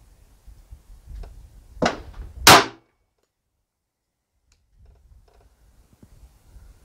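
Single shot from an HK45 .45 ACP pistol, a loud sharp report about two and a half seconds in, with a softer sharp crack a little before it.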